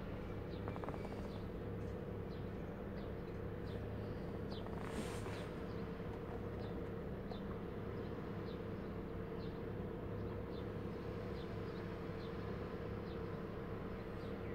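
Nissan Sunny's four-cylinder engine idling with a steady low hum. Faint short high chirps repeat about once or twice a second over it.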